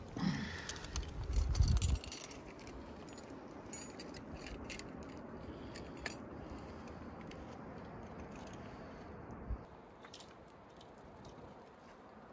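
Metal carabiners and climbing hardware clinking on a harness: scattered sharp clicks and a jangle. A loud low rumble in the first two seconds.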